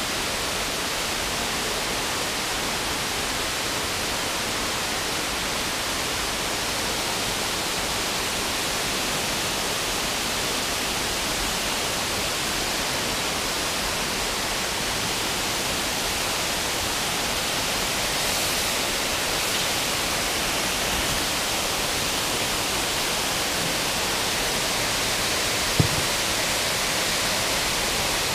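Steady rushing of water from the creek, an even hiss with no rhythm. One short knock sounds near the end.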